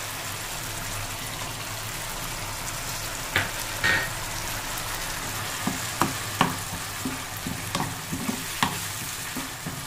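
Tamarind and jaggery gravy bubbling and sizzling in a pan. From about three seconds in, a steel spoon clinks and knocks against the pan as jaggery is stirred in.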